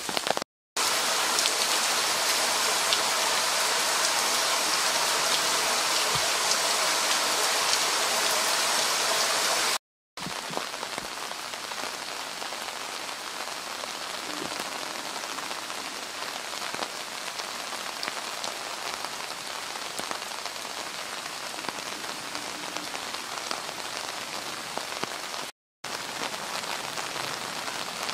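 Steady rain falling, an even hiss of drops. It drops out briefly three times at edits, and is louder for the first ten seconds than afterwards.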